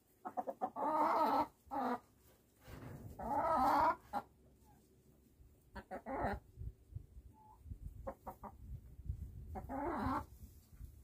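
Chickens clucking and calling in several drawn-out, wavering calls, the longest about a second each. Between the calls there are a few light clicks.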